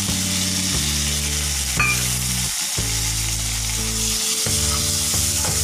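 Onions, green chillies and freshly added chopped tomatoes sizzling in hot oil in a nonstick kadai, a steady hiss over a low hum. A single sharp click, likely a spatula against the pan, sounds about two seconds in.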